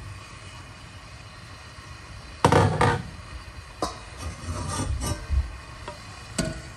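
Glass pot lid lifted off a stainless steel stockpot and set down with two sharp clanks, followed by several lighter knocks of cookware being handled.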